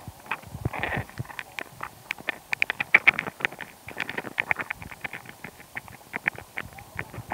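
Two hermit crabs fighting, heard underwater through a hydrophone: a rapid, irregular string of sharp clicks and taps, thickest about three seconds in. This is the sound of a fight in which one crab may be trying to win the other's larger shell.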